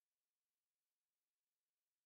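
Near silence: digital silence with only a faint even hiss.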